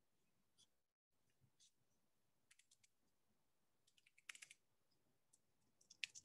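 Near silence with a few faint clicks, a small cluster about four seconds in and a few more near the end.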